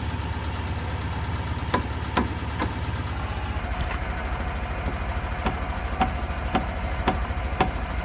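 Car engine idling steadily under repeated short knocks from the front steering linkage, a bit over two a second, as the wheel hub is worked to check for play. The knocking is the sign of play in the worn steering rack.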